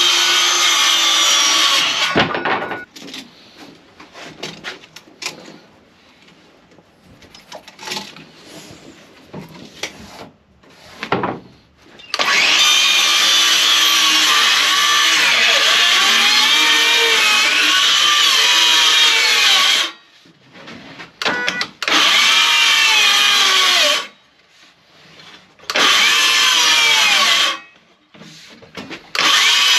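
Power saw cutting wood in separate runs: a short run at the start, a long cut of about eight seconds in the middle, then three shorter runs. The later runs are a DeWalt cordless circular saw cutting through a board, its motor pitch sagging and recovering under load. Quieter knocks and clicks of handling fill the gaps.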